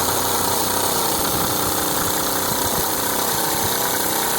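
Air impact gun running steadily under the trigger, spinning the screw of a scissor jack to lift the car.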